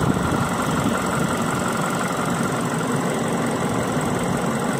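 2008 Ford Escape's four-cylinder engine idling steadily at operating temperature after a coolant refill, with the electric radiator cooling fan running.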